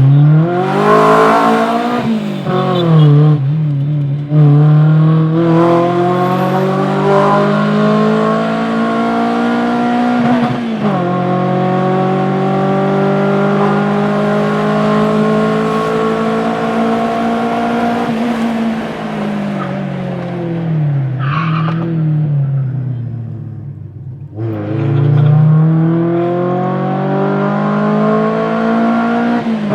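Modified, tuned Maruti Baleno engine pulling hard through the gears. Its pitch climbs steadily and drops sharply at each shift, falls away as the driver eases off about three quarters of the way in, then climbs again under throttle.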